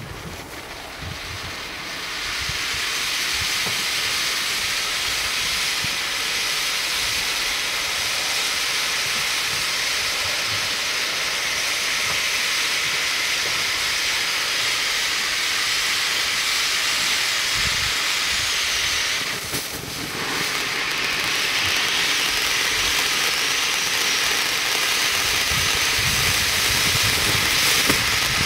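Zeus Mystic Fountain ground firework spraying sparks with a loud, steady hiss that swells up over the first two seconds after the fuse catches. The hiss dips briefly about two-thirds of the way through, then carries on.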